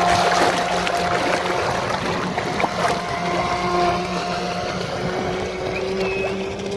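Radio-controlled model waverunner's motor whining steadily over splashing water and wind noise, slowly fading as the model runs away across the lake.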